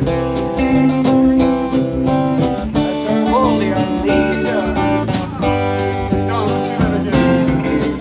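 Live country-folk band in an instrumental break: steady strummed acoustic guitar over bass and drums, with a lead guitar bending notes around the middle.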